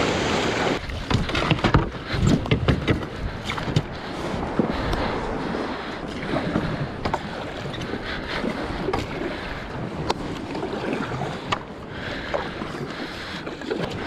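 Surf washing up the sand briefly at first, then a paddle dipping and splashing as a Solo Skiff is paddled across calm water. A few sharp knocks in the first few seconds, with light wind on the microphone.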